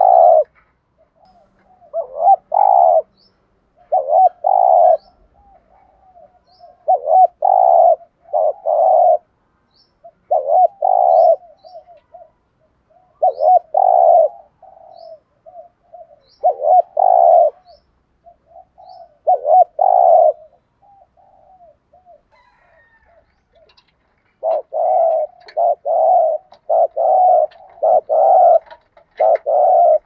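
Spotted dove cooing in short repeated phrases, the urging coo ('gù thúc') used by a decoy dove. The phrases come every couple of seconds, then quicken to about one a second near the end. Faint high chirps of a small bird sound in the background.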